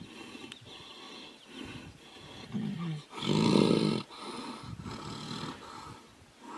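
Tigers growling while they wrestle in a fight, in a run of rough growls with one louder growl lasting under a second about halfway through.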